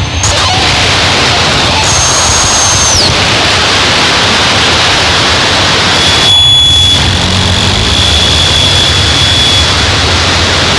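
Harsh noise music: a loud, dense wall of distorted noise from an analog synthesizer through fuzz and distortion pedals. A high whistling tone cuts in and slides down about three seconds in, and a steady high tone holds from about six seconds to near the end.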